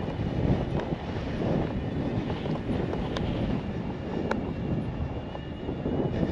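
Wind buffeting the microphone while cycling, an uneven low rumble, with two faint ticks about a second apart near the middle.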